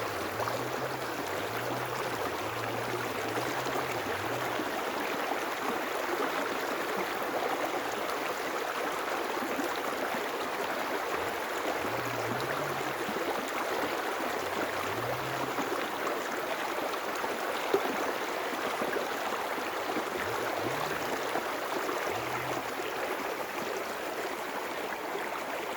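River water flowing in a steady rush, with a faint low hum that rises and falls a few times and a single sharp click about eighteen seconds in.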